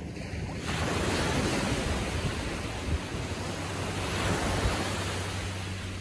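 A small wave breaking at the water's edge of a calm sea and washing up the sand. The rush starts about a second in, holds for a few seconds, then eases off near the end.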